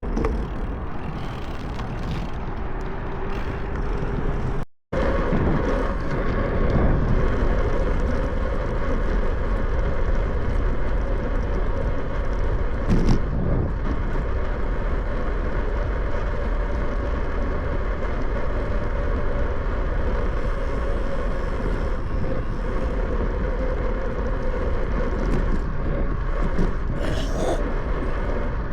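Steady wind rush on the microphone and rolling road noise from a bicycle riding along a path, broken by a short silent gap about five seconds in.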